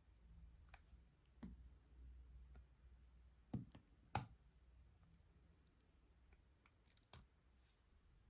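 Small sharp clicks and taps of metal watchmaking tools and watch parts being handled on a bench, scattered and irregular, with two louder taps about three and a half and four seconds in and a short cluster near seven seconds.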